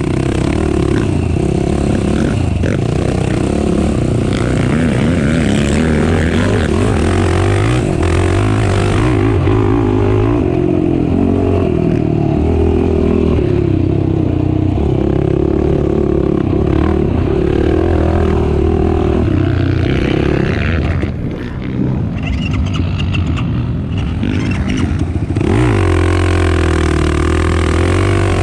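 Race ATV engine running hard, its pitch rising and falling with the throttle. It eases off briefly about three-quarters of the way through, then picks up again.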